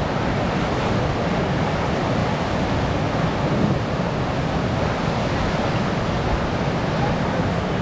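Whitewater rapid rushing steadily, a constant, even noise of churning river water.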